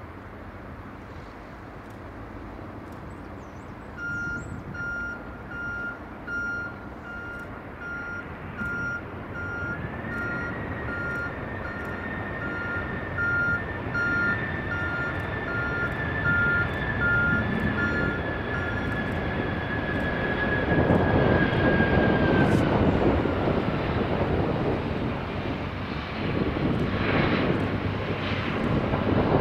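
Jet airliner, a DHL Boeing 767-300F, coming in to land: a high engine whine and a roar that builds to its loudest about two-thirds of the way through, the whine dropping slightly as it passes. A vehicle's reversing beeper beeps steadily, about once a second, through the first half.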